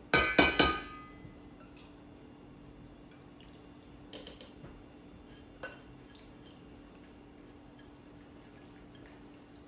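Kitchen utensils clinking against a stainless steel mixing bowl: a quick run of sharp, ringing clinks in the first second, then a few soft knocks and clinks as a bowl of wet batter ingredients is lifted and poured into it. A faint low steady hum runs underneath.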